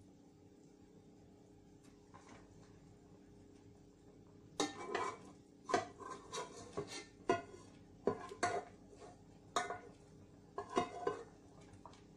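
Metal spatula knocking and scraping against a nonstick frying pan as cooked glutinous rice is worked into simmering coconut milk: a run of short clinks and scrapes starting about four and a half seconds in.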